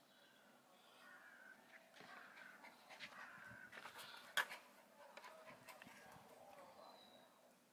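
Near silence with faint bird calls and a few small ticks, and one sharp click about four and a half seconds in.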